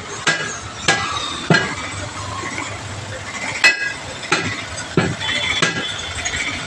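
Hand hammer blows on a car tyre and its steel wheel rim as the tyre is worked off the rim for a puncture repair: about seven sharp strikes at uneven spacing. The loudest, a little past halfway, is a ringing metallic clang.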